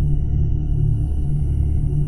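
Eerie background music: a deep, steady low drone with faint high tones held above it.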